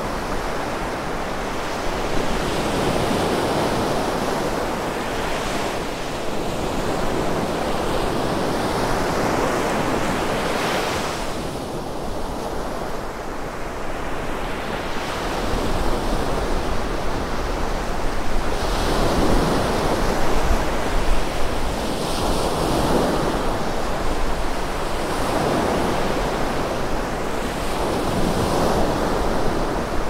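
Rough surf breaking and washing up a sandy beach in strong wind, swelling and easing in several surges, over a steady low rumble of wind on the microphone.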